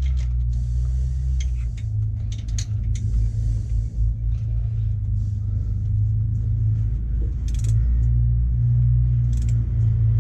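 Sharp metallic clicks and knocks of a hand wrench being forced to tighten engine bolts hard, over a steady low rumble.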